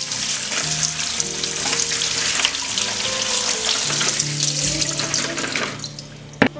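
Tap water running onto green beans in a plastic colander, splashing as they are rinsed; the flow stops near the end, followed by a single sharp knock. Soft background music with held notes plays underneath.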